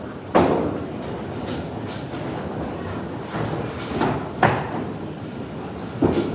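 Candlepin bowling alley: balls rolling down the wooden lanes with a steady rumble, broken by sharp clatters of balls hitting pins about half a second in, around four and a half seconds, and again near the end.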